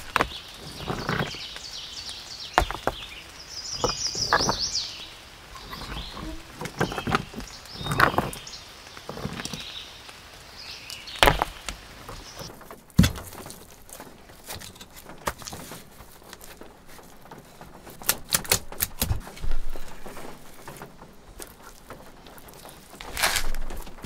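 Scraping and dull knocks of a metal trowel stirring damp clay and soil in a plastic bucket, followed by stones being knocked and set down against one another. A bird chirps briefly about four seconds in.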